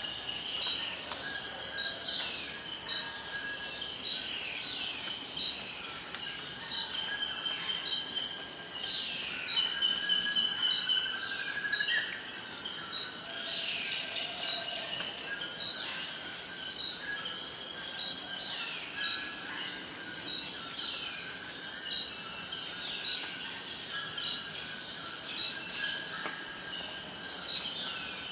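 Tropical forest ambience: a steady high-pitched insect drone, with birds repeatedly giving short descending calls and a few brief trills.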